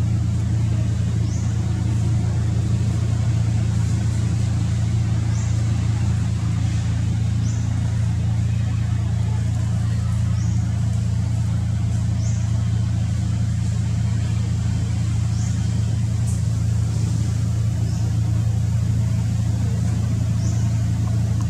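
A steady low motor hum with no change in pitch, over which faint short high chirps recur every second or two.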